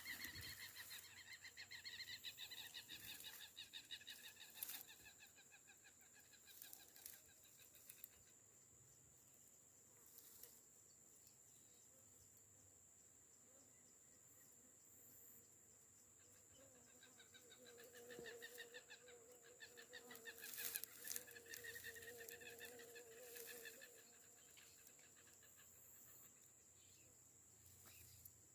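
Faint chorus of rapid, pulsing animal calls, with a few sharp clicks.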